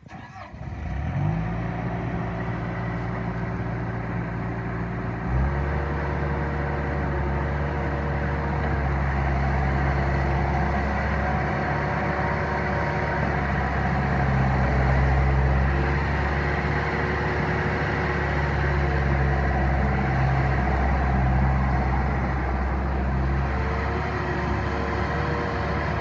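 Bobcat 873 skid-steer loader's diesel engine running at a low steady speed, then throttled up about five seconds in and held at a higher, steady speed while the loader moves about.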